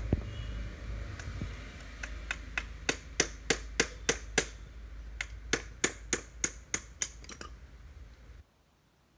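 Sharp metal taps on a gear selector's retaining pin in a Mahindra NGT520 gearbox, about three a second in two runs with a short pause between them, as the pin is driven out so the selector can be pulled free. A low workshop hum lies underneath until the sound cuts off near the end.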